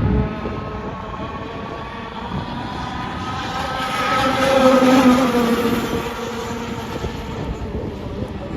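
Two-stroke petrol engine of a radio-controlled gas boat running at speed on the water. It grows louder as the boat passes close, is loudest about five seconds in, and then fades as it moves away.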